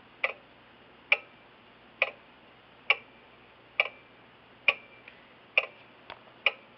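Jauch 77 grandfather clock movement ticking: eight sharp ticks, evenly spaced a little under a second apart. The even spacing between tick and tock shows the escapement is in beat.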